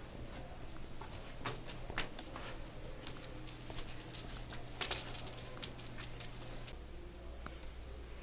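Slow, cautious footsteps on dusty attic floorboards littered with wood scraps and debris: scattered small crunches and ticks, with a brief cluster of them about five seconds in.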